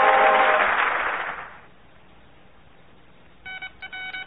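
Studio audience applause over a held chord of several steady tones, fading out over the first second and a half. After a quiet gap, a buzzing tone starts pulsing rapidly on and off near the end.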